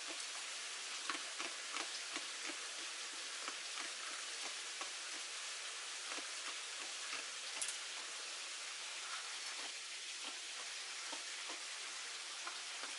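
Steady hiss of light rain, with scattered soft clicks and ticks and one sharper click about seven and a half seconds in.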